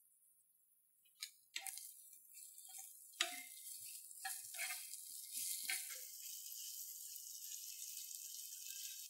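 Light clinks and taps of kitchen utensils against dishware, about seven over several seconds, some with a short ring, over a faint steady hiss.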